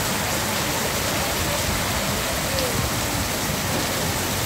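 Heavy rain falling, with runoff pouring in streams off a roof edge onto the pavement: a steady, even hiss and splash.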